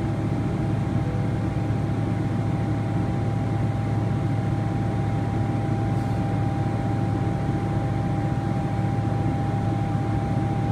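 Steady cabin drone of a Boeing 777-300ER in flight, heard inside the cabin: a low hum from the GE90 engines and airflow, with a thin steady whine over it.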